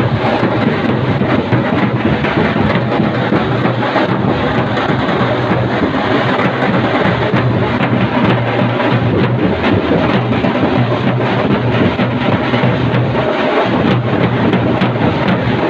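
Several dhol drums beaten together by a marching drum group, loud and continuous, with dense, rapid strokes.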